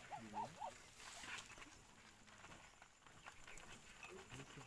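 Faint pecking and pattering of ducklings' bills in grain scattered on a plastic sheet, with three quick calls from one of the birds in the first second.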